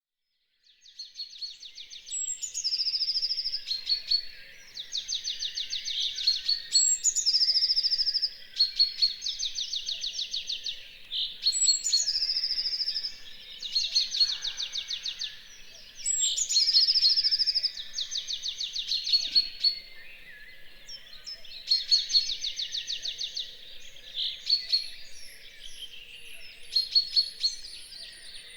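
Birds singing in a dawn chorus: one loud songbird repeats a rapid trilled phrase, ending in a higher whistled note, every two to three seconds, over fainter calls of other birds.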